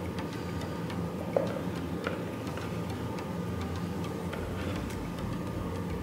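A light, regular ticking over a low steady hum, with one soft knock about a second and a half in. The thick soap batter pours without an audible sound.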